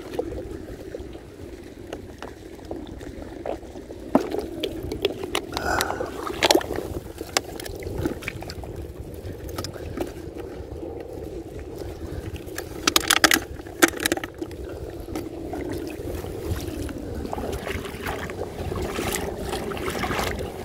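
Wading through shallow seawater in rubber chest waders: water swishing and sloshing around the legs with each step, with scattered sharp clicks and knocks.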